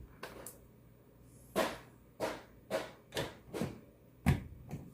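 A string of short, sharp plastic clicks and knocks, about eight in a few seconds, as a USB plug is pulled out and pushed into the USB ports of a plastic power strip.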